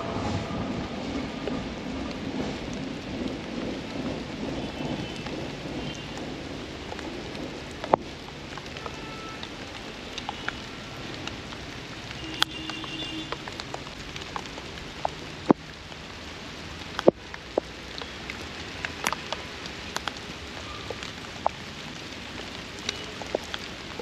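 Steady rain hissing, with scattered sharp ticks of drops striking nearby surfaces. The low rumble of the passing train fades out over the first few seconds.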